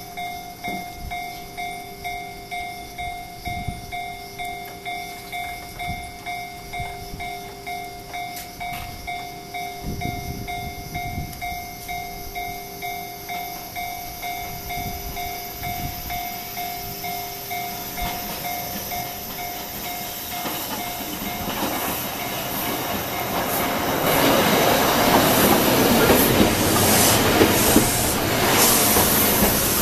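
Japanese level-crossing warning bell ringing in a steady rapid rhythm, about one and a half strikes a second, fading out after about twenty seconds. Then a Fukui Railway 770-series tram grows loud as it pulls in, its wheels clicking over the points and rail joints.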